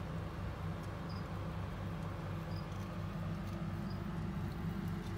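A steady low hum with a faint even pulsing, and short faint high chirps about every second and a half.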